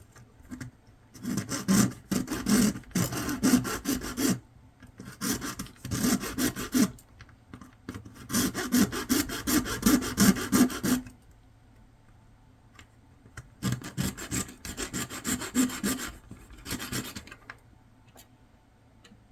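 Hand tool sawing back and forth through the hard plastic inside a Raymarine e7 chart plotter, cutting a piece free to reach the SD card reader. It comes in four bouts of quick rasping strokes with short pauses between.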